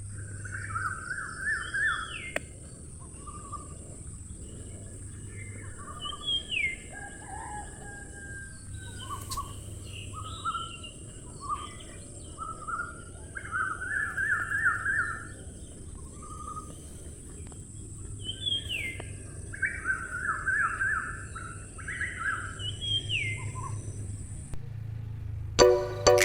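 Parrot chirping and calling: repeated bursts of quick trilled chirps broken by short rising whistles.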